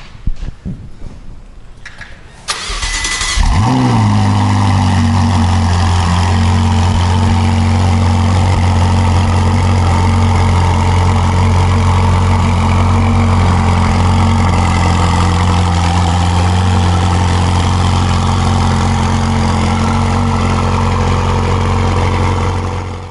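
Ferrari 488's twin-turbo V8 cranked by its starter about two and a half seconds in. It catches a second later with a short flare of revs, then settles into a steady idle.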